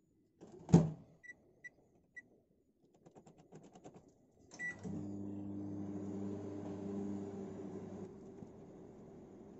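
LG microwave oven being started: a sharp clack, three short keypad beeps, then another beep about four and a half seconds in, after which the oven starts running with a steady hum from its fan and rotisserie motor. The hum drops to a quieter level about eight seconds in.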